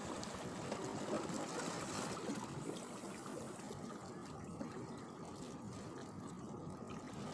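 Estuary water lapping and trickling, a steady wash of sound.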